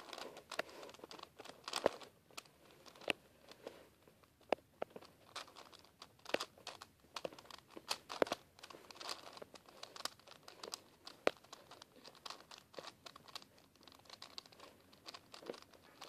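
4x4x4 Rubik's cube being turned by hand: plastic layers clicking and scraping in quick, irregular turns.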